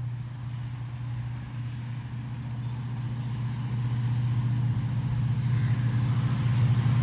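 An approaching train: a low, steady drone that grows gradually louder as the locomotive draws nearer.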